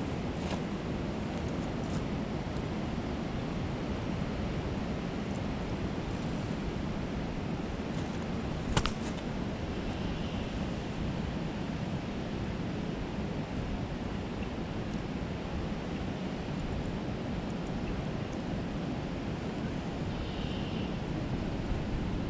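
Steady rushing of a creek's flowing water, with one short sharp click about nine seconds in.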